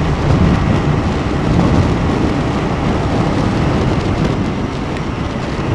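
Heavy wind rush and buffeting on a helmet-mounted microphone as a KTM 390 Duke is ridden flat out at about 150 km/h. The wind noise covers the engine and is steady, heaviest in the low end.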